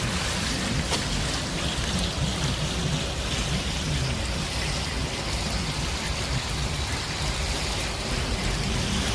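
Small urban stream flowing: a steady rush of running water, with a low wavering hum underneath.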